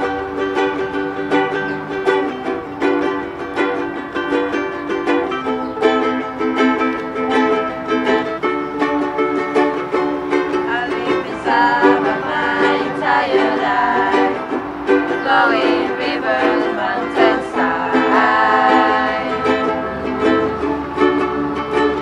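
A group of ukuleles strumming chords together in a steady rhythm, with voices starting to sing a verse about halfway through.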